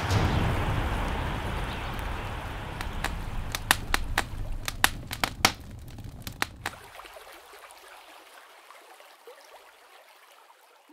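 Fire crackling: a rushing hiss with a run of sharp pops in the middle, fading away toward silence near the end.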